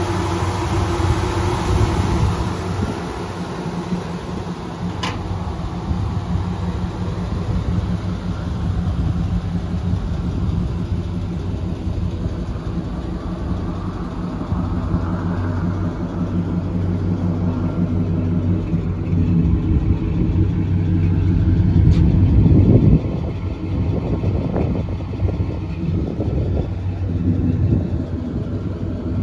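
Chevrolet 400 small-block V8, breathing through headers and Flowmaster mufflers, idling steadily. It swells louder a few times about two-thirds of the way through.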